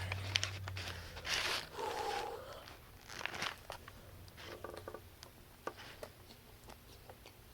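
Crinkling and rustling of a fast-food sandwich wrapper being handled and opened, with scattered small crunchy clicks, most of it in the first half.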